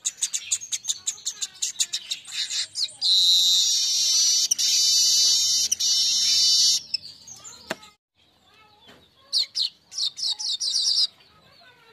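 Manyar weaver birds singing: rapid runs of sharp high chip notes, then a loud, harsh buzzing chatter for several seconds. The song breaks off briefly near the middle, then another quick run of chips follows.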